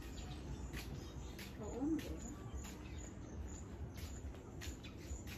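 Outdoor ambience of high, short insect chirps repeating about two to three times a second over a low rumble. A brief low call stands out about two seconds in.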